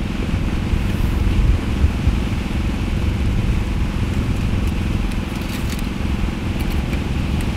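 Wind buffeting the microphone: a steady, rough low rumble, with a few faint small clicks on top.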